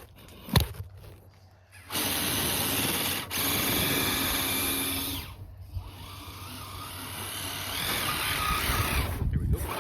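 Electric motor and geared drivetrain of an RC crawler whining as it is driven, in two throttle runs: one from about 2 to 5 seconds in, then a second that builds up with a rising pitch near the end. A sharp click comes about half a second in.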